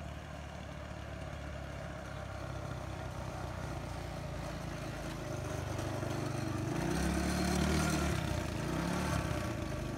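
Off-road go-kart engine running as the kart drives closer, getting steadily louder; near the end the revs rise and fall twice as it slows and turns.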